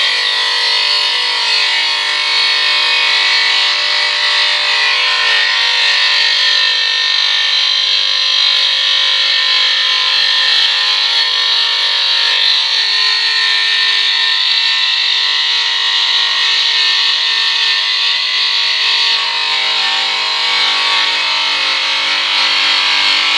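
Electric tile-cutting machine running steadily, a constant unchanging motor whine with the blade cutting through tile.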